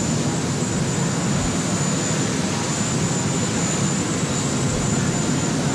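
Marine One, a Sikorsky VH-3D Sea King helicopter, running on the ground with its rotor turning: a steady turbine whine over a heavy rotor and engine rumble.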